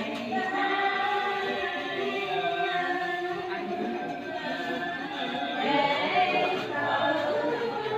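Group of voices chanting a Cao Đài liturgical prayer in unison, unaccompanied, on long held notes that slide slowly between pitches.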